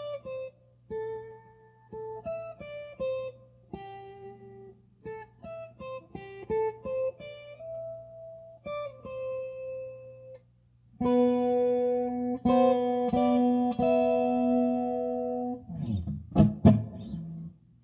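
Electric guitar playing a picked single-note melody, then, after a brief pause about ten seconds in, several ringing strummed chords. A few low thumps near the end as the strings are stopped and the guitar is handled.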